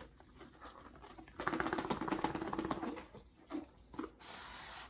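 A tight cardboard box tray being forced out, dragging with a rasping, stuttering scrape for about a second and a half, then softer rubbing and a couple of small knocks.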